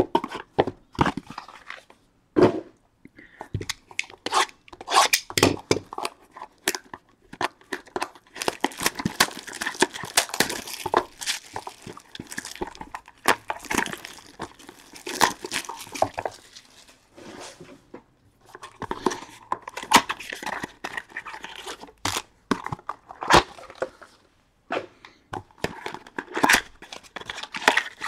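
Plastic wrap being torn and crinkled and cardboard handled as a sealed box of baseball cards is opened, in irregular crackling bursts with short pauses.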